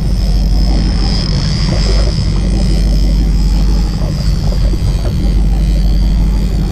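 Steady low rumble of a fishing boat's engine running while trolling, with a faint high whine held above it.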